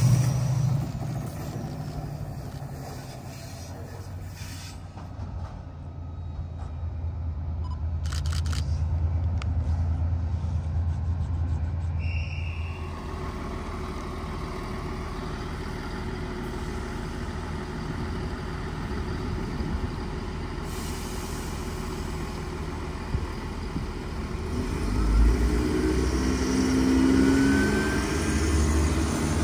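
Class 68 diesel locomotive 68012 running as its train draws away, its low engine drone fading, followed by a steady low hum. After a change about halfway through, a Chiltern Class 168 diesel multiple unit's engines hum at the platform and grow louder near the end.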